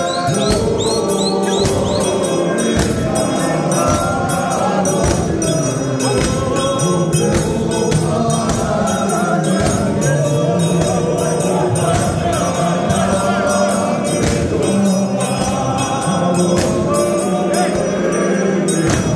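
A large group of men singing together in unaccompanied gospel style, with a steady beat of sharp percussive strikes keeping time under the voices.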